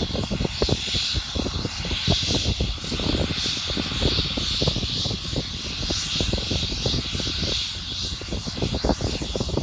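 Helicopter standing on the ground with its turbine engines running: a steady high whine over an uneven low rumble.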